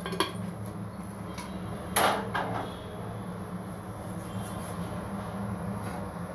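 A single sharp knock about two seconds in, like a cupboard door or kitchen utensil, over a steady low hum.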